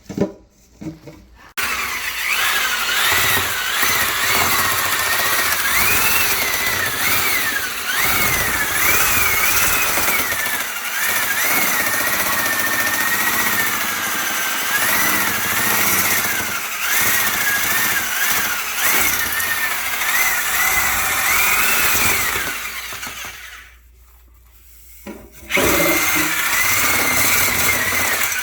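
Power drill spinning a rotary dryer vent cleaning brush. The motor whine wavers up and down with the load, stops for about two seconds near the end, then starts again.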